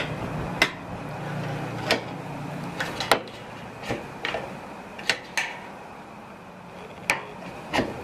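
About ten sharp clicks and taps at irregular intervals: a flat straight-edge blade knocking and catching against a dryer's sheet-metal front panel as it is worked into the panel gap to push down the retaining tang.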